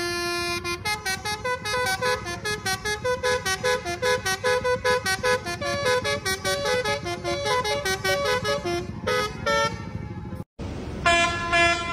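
Bus telolet horn by Basuri, a multi-tone musical horn, playing a fast tune of short tooting notes, several a second, over the bus's engine rumble. The sound cuts out briefly about ten and a half seconds in, then the horn sounds again.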